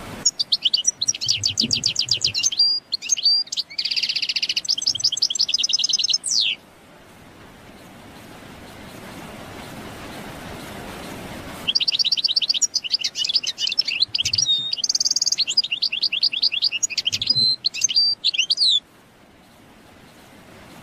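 European goldfinch singing: two long song phrases of rapid, high twittering trills and buzzy notes, about seven seconds each, with a pause of steady hiss between them.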